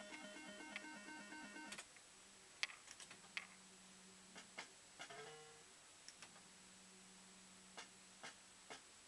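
JPM Topsprint fruit machine: a short electronic beeping tune of stepped notes, then three sharp clicks a little under half a second apart as the reels stop. About five seconds in a brief electronic tone sounds as the next game starts, a low steady hum runs while the reels spin, and three more reel-stop clicks come near the end.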